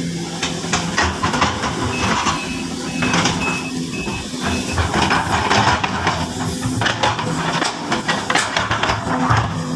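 Sumitomo SH-200 hydraulic excavator running steadily, with irregular knocks and rushes of noise from its work.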